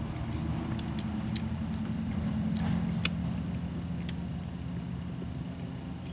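Small wet clicks and smacks of someone eating with his fingers, licking them and pulling meat off a cooked pigeon, scattered over a steady low hum that swells a little about two to three seconds in.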